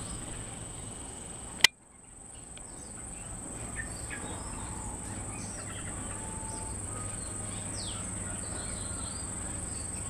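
Insects in the trees making a steady high-pitched drone, with a few faint short chirps. A single sharp click about a second and a half in is the loudest sound.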